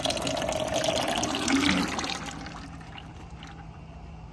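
Engine oil draining in a thin stream from an outboard motor's drain hole into a plastic bucket, splashing into the oil already pooled in it. The crankcase is being drained to check for flood water in the oil. The pouring is louder for about the first two seconds, then softer.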